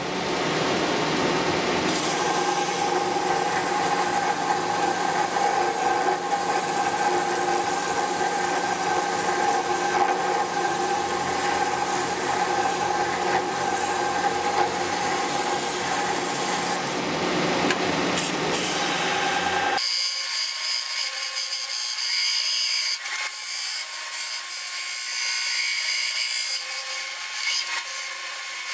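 Vertical belt sander running while small aluminium tabs are pressed against the belt to grind and smooth their edges, a steady hum under the grinding. About twenty seconds in the sound changes abruptly: the low hum drops away and a thinner, higher grinding is left.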